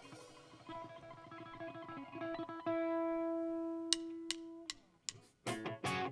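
Electric guitar playing a song's intro: picked notes growing louder, then one note held for about two seconds that sags in pitch as it dies away. After a brief gap, loud rhythmic chords come in near the end.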